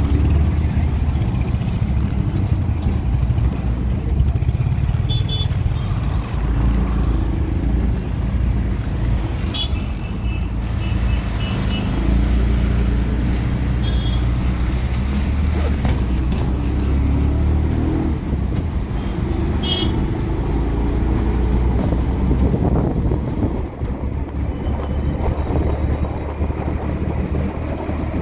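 Auto-rickshaw engine running with a steady low throb while riding in traffic, with short high horn beeps from nearby vehicles several times.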